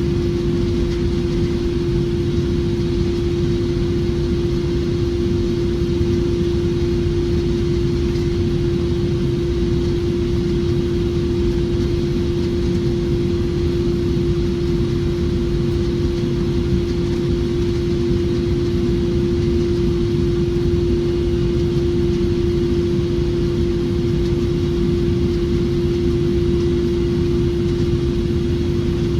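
Boeing 777-300ER passenger cabin in flight: a steady low rumble of engine and airflow noise, with a constant mid-pitched hum over it.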